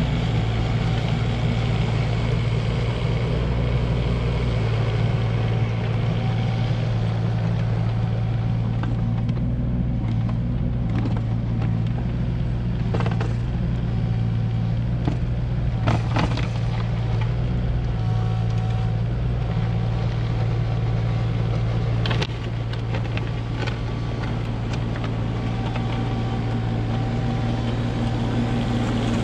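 Komatsu PC16 mini excavator's diesel engine running steadily while it pushes snow with a snow plow on the front, with a few short sharp knocks partway through.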